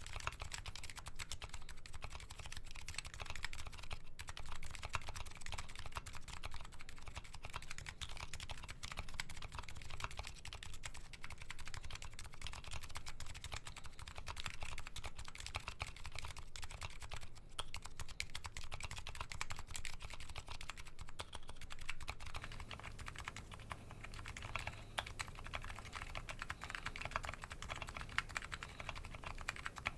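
Continuous fast typing on a Nuxros Kraze custom keyboard with MetaKeebs electrocapacitive switches and DCS Sleeper keycaps: a steady, dense stream of keystroke clacks.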